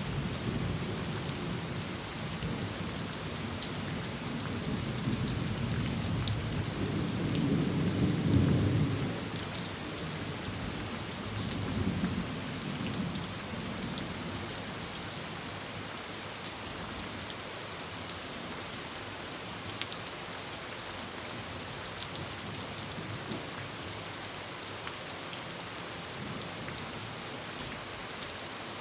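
Heavy rain drumming steadily on a tin roof, with a rolling rumble of thunder in the first half that swells loudest about eight seconds in, comes back more weakly a few seconds later, then dies away, leaving only the rain.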